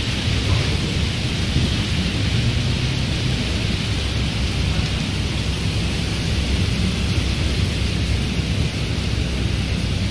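Heavy rain pouring down in a windy storm: a steady rush of rain with a low rumble of wind underneath.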